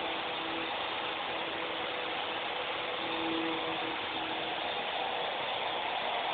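Small remote-control toy helicopter's electric motor and rotors whirring steadily, with a faint wavering hum.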